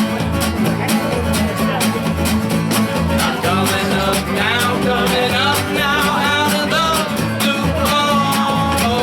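Rock band playing a song: electric and plucked guitars over a steady drum beat, with a melodic sung line bending in pitch above.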